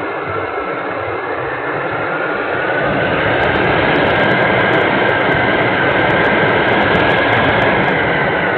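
In-flight sound of a Radian electric motor glider, heard from a keychain camera taped to its airframe: a loud steady rush of air and propeller noise with a faint steady whine, swelling over the first few seconds and then holding.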